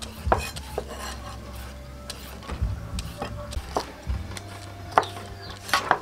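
Hand shredder scraping strips off a raw carrot in irregular quick strokes, with light clicks.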